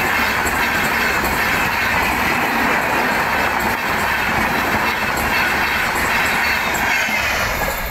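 Express train running past at speed: a loud, steady rush and clatter of coach wheels on the rails. Near the end, as the last coaches go by, the sound starts to fall away.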